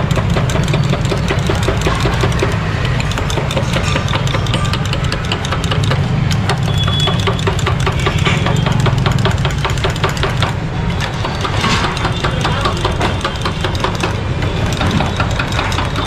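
Steady low machine hum, with many small clicks and clinks of a steel spoon against glasses as thick cold coco is spooned into them.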